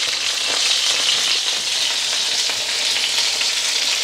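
Mutton chapli kebab patties sizzling steadily as they shallow-fry in hot oil in a frying pan.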